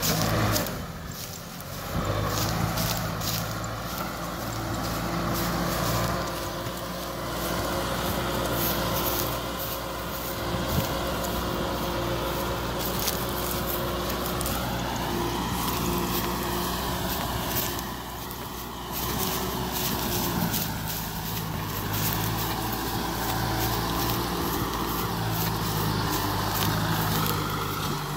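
Kubota M6040SU tractor's diesel engine running steadily under load as it works through the field. The engine note drops back briefly twice, about a second in and again around two-thirds of the way through.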